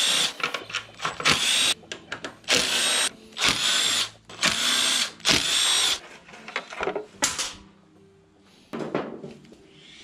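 Cordless impact wrench running in about six short bursts, undoing the front axle of a motorcycle, followed by a couple of fainter knocks near the end.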